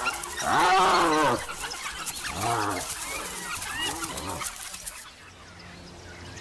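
Three short animal calls, each rising and then falling in pitch. The first is the loudest, about half a second in. Faint high chirps and a thin hiss run beneath them and drop away about five seconds in.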